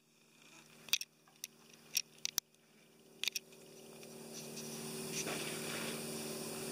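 Blue plastic tarp being handled and draped over a miniature horse: a few sharp crackles in the first few seconds, then a steady crinkling rustle that builds up from about three seconds in.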